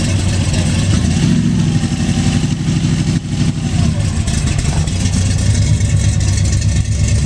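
Supercharged drag-car engine, its blower sticking up through the hood, running at a steady, loud idle with a rapid, uneven pulsing rumble.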